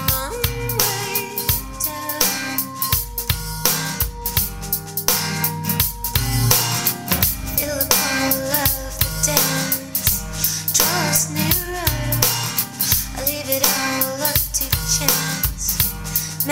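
Music with a driving drum-kit beat, heavy bass and a melody line, played loud through a JBL ES25C three-way center-channel speaker whose internal board has been modified to give its tweeters extra treble, as picked up by a studio microphone in front of it.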